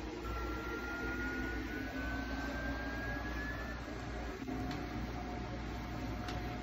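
SeeMeCNC Rostock Max v4 delta 3D printer's stepper motors whining as the carriages move the effector at the start of auto-leveling: a thin tone slowly rising in pitch for about three and a half seconds, then, after a faint click, a lower steady tone.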